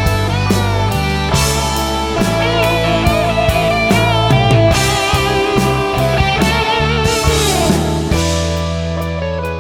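Instrumental psychedelic rock: a lead guitar plays a melody with bends and vibrato over steady bass notes and a drum kit.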